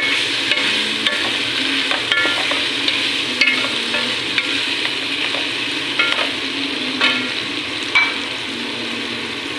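Chicken and sliced mushrooms sizzling in a frying pan while being stirred with a wooden spatula, which knocks and scrapes against the pan about once a second.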